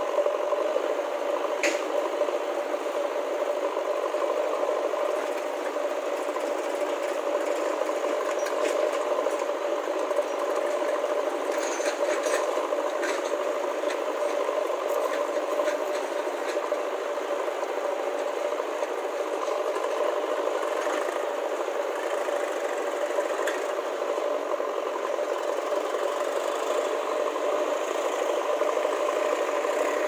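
JCB backhoe loader's diesel engine running at a steady speed, a constant drone with a few faint clicks over it.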